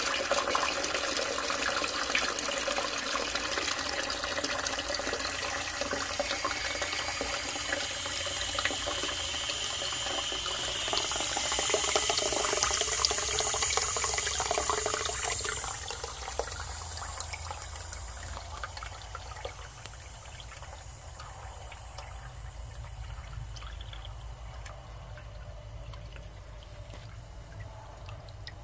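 A toilet cistern refilling: water pours from a brass Part 2 float valve's spout and splashes into the water in the tank. The flow runs loudest around the middle, then grows steadily quieter toward the end.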